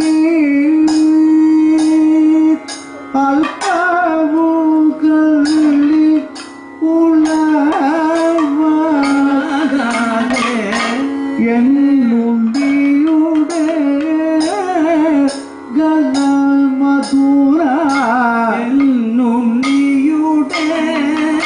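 Kathakali accompaniment music: a singer holds a slow, ornamented Carnatic-style vocal line, mostly on one note with bends, over sharp stick strokes on the chenda drum. The singing breaks off briefly a few times.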